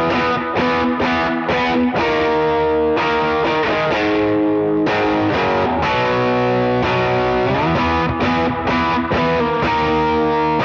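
Electric guitar played through cranked, overdriven amps with no pedals and a little plate reverb: distorted chords and notes in the key of B, picked repeatedly and left to ring, with a few slides between positions.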